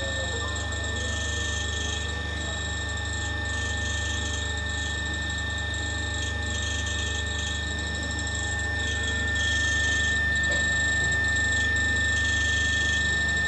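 Motor-generator set of a DVDF transformer test bench running under load during the one-minute double-voltage, double-frequency (100 Hz) withstand test: a steady low hum with a constant high-pitched whine, getting louder about nine seconds in.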